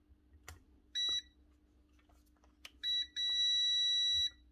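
Digital multimeter's continuity beeper sounding as its probes bridge the power lead from plug pin to cable end: a short high-pitched beep about a second in, another near three seconds, then a steady beep held for over a second. The beep shows the lead conducts, so the lead is not the fault.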